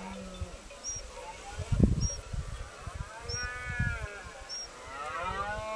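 Red deer stag roaring in the rut (berrea): two drawn-out calls that rise and fall in pitch, one about three seconds in and another starting near the end. A low bump about two seconds in is the loudest sound.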